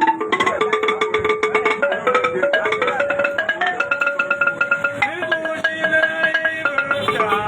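Music: a melody of held notes that slide between pitches, over a quick, busy percussion beat.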